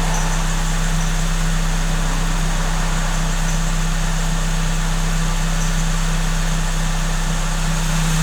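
Supercharged Suzuki Swift Sport (ZC31S) engine idling steadily, with a high, thin squeak from the supercharger's V-belt running off the main crank pulley.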